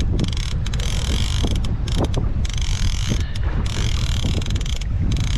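Fishing reel being cranked against a very heavy fish, its gears whirring steadily, under heavy wind rumble on the microphone.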